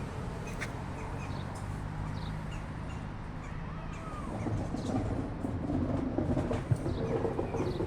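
Steady low rumble with scattered short, high chirps of small birds.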